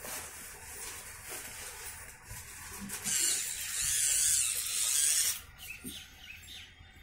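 Wooden Theo Jansen walking mechanism running on carpet: its plywood legs and cranks rustle and knock as they step. A louder hissing rustle starts about three seconds in and stops about two seconds later.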